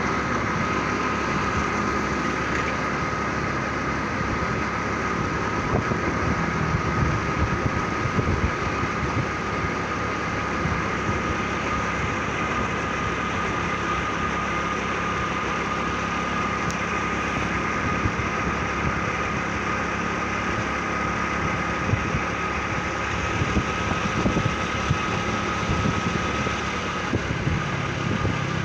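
Motorcycle engine running steadily while riding along, with a steady high whine over the engine note and wind noise.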